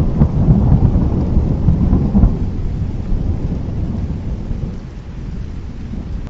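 Thunderstorm: deep rolling thunder rumbling, loudest in the first two seconds or so and slowly dying away toward the end.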